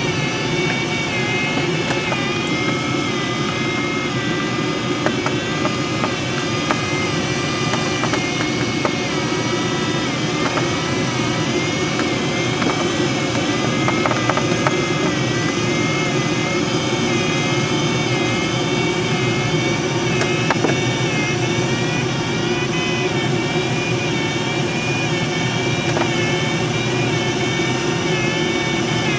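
Steady rush of airflow around the canopy inside the cockpit of a Schleicher ASW-15b sailplane, with the electronic audio variometer's tone sliding slowly up and down in pitch as the glider's rate of climb or sink changes.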